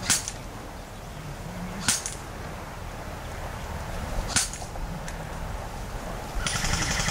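Airsoft guns firing: three sharp single shots about two seconds apart, then a rapid full-auto burst starting near the end.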